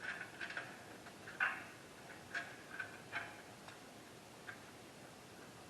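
Irregular small clicks and taps of hand tools and small parts being handled on a radio chassis during disassembly, the loudest about a second and a half in.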